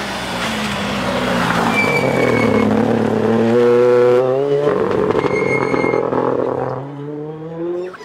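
Rally car engines at speed: the revs fall as the car brakes, then climb steeply in rising sweeps that break off and start again several times. A brief thin high whine comes twice.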